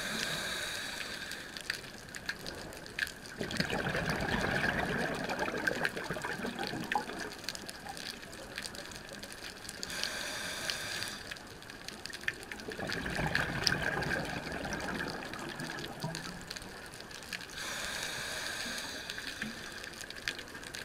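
A scuba diver breathing through a regulator underwater: a hiss on each inhale, then a gush of exhaled bubbles, in two full breaths about nine seconds apart. The second exhale is followed by the hiss of a third inhale. Scattered sharp clicks come through underneath.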